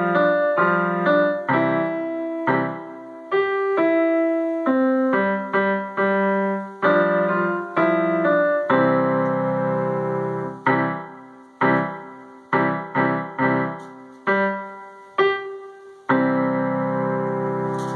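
Digital upright piano set to a concert grand piano sound, playing a simple beginner's piece of struck notes and chords, each dying away. Longer held chords come about nine seconds in and again near the end.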